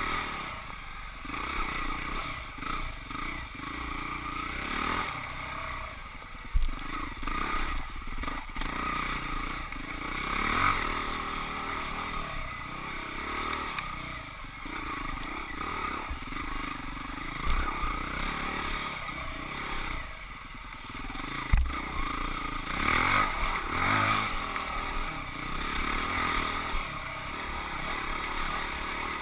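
Husqvarna 449 single-cylinder four-stroke dirt bike engine revving up and backing off over and over on a rough trail, with two sharp knocks from the bike hitting bumps.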